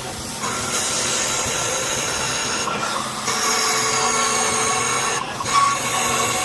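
A power tool or workshop machine running steadily, a hiss with a held whine over it. Its sound shifts briefly about three seconds in and again a little after five seconds.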